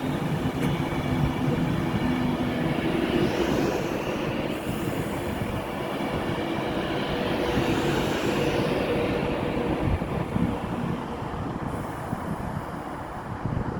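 Class 390 Pendolino electric train moving through the station, a steady running noise with high whines that rise and fall twice.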